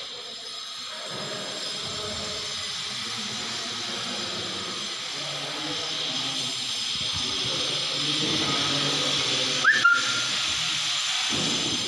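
Steady background hiss with a low, indistinct murmur underneath, and one short high chirp near the end that rises and then holds briefly.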